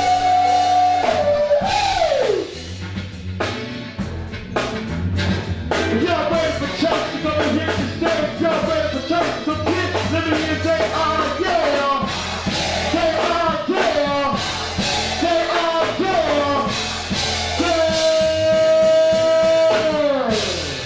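A man sings into a microphone, backed by a live band with a drum kit, keyboard and guitar. He holds long notes that slide down at the ends of phrases: once about two seconds in, and again in a long held note near the end that falls away.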